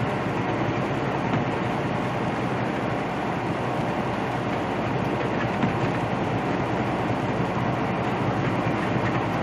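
Steady cab noise of a Peterbilt semi truck cruising at highway speed: engine drone mixed with tyre noise on wet pavement.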